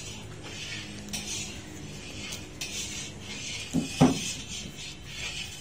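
Slivered nuts sliding off a metal tray and being scattered by hand over crumbly halwa: a light, dry, repeated rustle with clinks of the metal tray. One louder knock comes about four seconds in.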